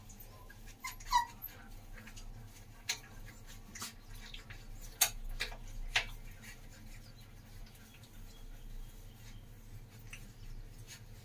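Doberman Pinscher puppies whimpering in short, scattered squeaks while nursing, the loudest about a second in, among brief clicks and scuffles.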